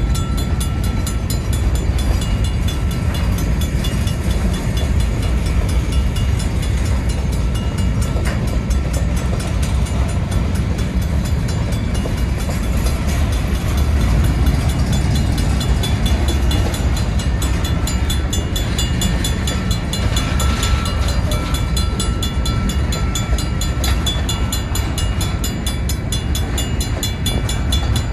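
Freight train of covered hopper cars rolling past at steady speed: a continuous heavy rumble of steel wheels on the rails.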